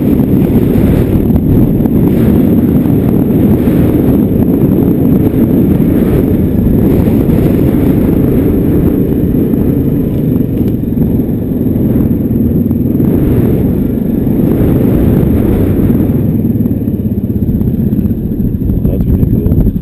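Yamaha ATV's single-cylinder engine running steadily and loudly as the quad rides over a rough, rocky trail.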